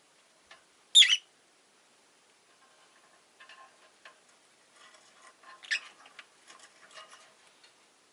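Rosy-faced lovebird giving one loud, short, shrill call about a second in, followed by softer scattered chirps and small clicks, with another sharp call near the six-second mark.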